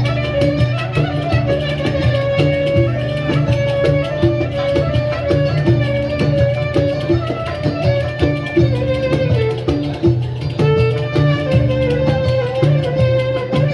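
Instrumental Middle Eastern–Balkan folk music: a bowed string melody over plucked strings and a steady low bass, with quick rhythmic notes.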